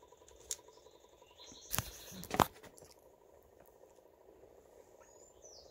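Faint steady whir of a 3D-printed pulse motor, its four-magnet rotor kept spinning by a pulsed coil running on about 8 volts, with a thin steady tone. A few sharp clicks and knocks come through, the loudest about two and a half seconds in.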